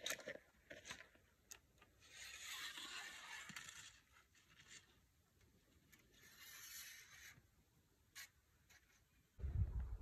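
Faint handling sounds of a fishing rod and line being rigged: scattered light clicks and two stretches of soft hissing rustle, with a low rumble starting near the end.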